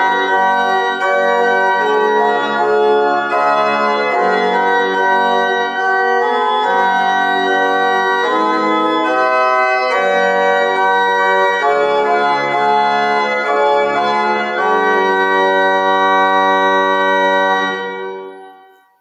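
Organ playing a hymn tune in held chords that change about every second, with no singing; the final chord fades away near the end.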